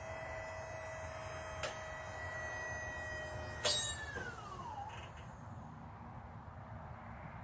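Haulotte 3522A man lift's motor running with a steady whine. About three and a half seconds in it cuts off with a sharp click, and its pitch falls as it spins down.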